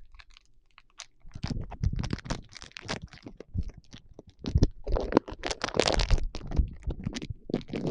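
Chocolate-bar wrapper being crinkled, pulled and torn at as it resists opening: a rapid, irregular crackle that starts about a second in and is densest a little past the middle.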